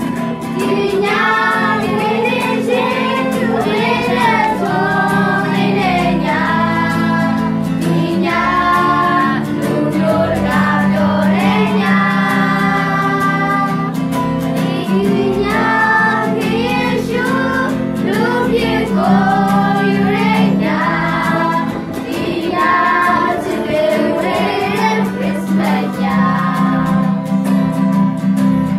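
A small group of girls singing a song together, accompanied by a strummed acoustic guitar.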